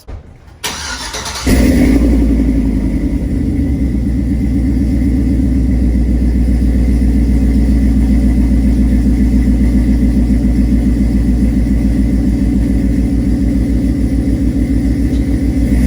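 Pickup truck's engine started: it cranks briefly, catches about a second and a half in, then idles steadily with a loud, low, evenly pulsing exhaust note through its aftermarket exhaust.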